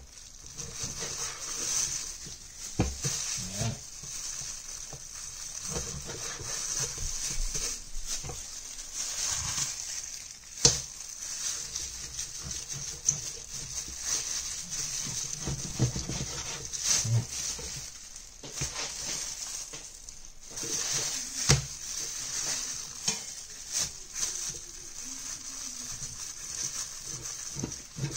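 Cleaver slicing through raw pork ribs on a wooden cutting board, with irregular knocks as the blade meets the board.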